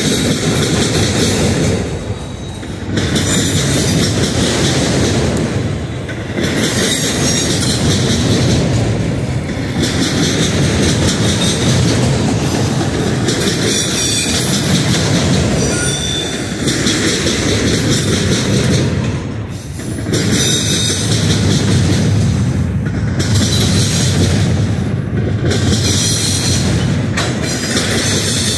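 Freight cars of a long intermodal train rolling past close by: a steady rumble of steel wheels on rail. Short stretches of high-pitched wheel squeal come and go, and the sound swells and eases every few seconds as the cars go by.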